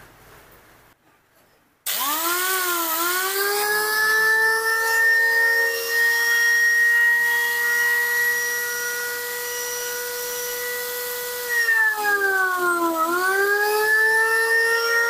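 Makita angle grinder switched on about two seconds in, its motor spinning up with a rising whine and then running steadily at full speed; near the end the pitch dips as it slows and then climbs back up. It runs on a correctly sized 607 bearing in place of a wrongly fitted 608, and from this sound the repairer judges the overheating likely cured.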